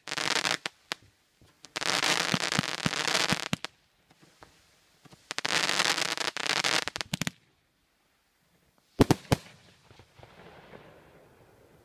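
Aerial fireworks: three spells of dense crackling, each one to two seconds long, the last cutting off suddenly. Then two sharp bangs about nine seconds in, a third of a second apart, with a fading echo after them.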